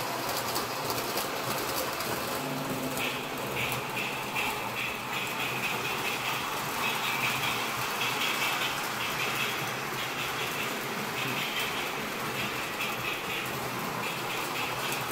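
O-scale model trains running on the layout's track, with the steady rumble of the cars' wheels rolling over the rails and the whir of the locomotives' electric motors, and no built-in locomotive sound effects. A higher, flickering whir joins about three seconds in.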